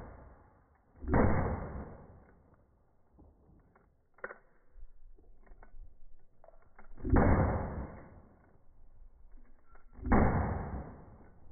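Handgun shots from a Nagant revolver (7.62x38R) and a Star Super B 9mm pistol, fired a few seconds apart. There are three loud shots, about a second, seven and ten seconds in, each followed by a long echoing tail, and a fainter shot around four seconds in.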